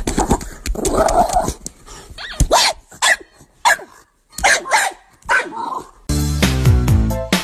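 A dog barking and yipping in short calls, about five times in a few seconds. Music starts about six seconds in.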